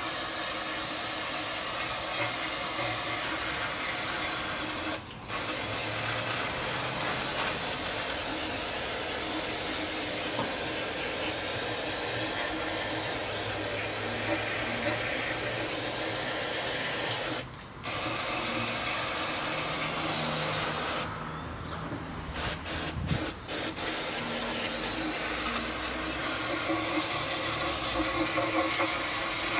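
Aerosol cleaner sprayed from a can into an open rear differential, rinsing the ring and pinion gears. It makes a steady hiss that stops briefly twice, then comes in several short squirts before running steadily again.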